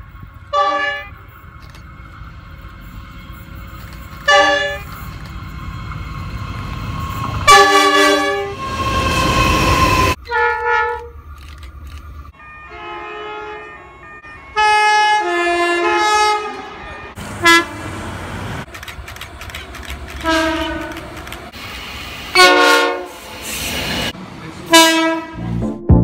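Train horns sounding repeatedly, each blast a chord of several steady notes. A first train gives two short blasts, then a long blast over the rumble of the passing train. After that a second train sounds a run of short and longer blasts as it approaches.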